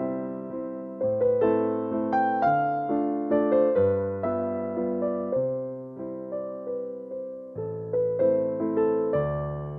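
Background music: a slow, gentle tune played on electric piano, the notes struck and left to fade.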